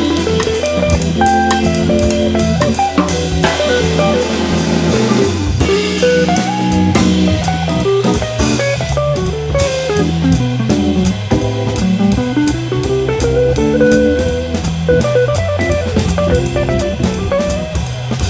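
A jazz organ combo playing: an electric guitar plays a melodic line over organ chords and bass, with a drum kit keeping time on the cymbals.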